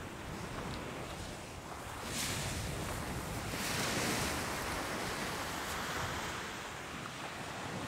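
Small ocean surf breaking and washing up a sandy beach, swelling about two seconds in and again around four seconds, with wind on the microphone.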